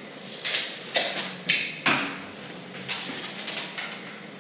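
Four or five sharp knocks and clatters in the first two seconds, each with a short ringing tail, then a softer tap about three seconds in: work noises from handling a white oak stair tread and tools against the steel stair stringer.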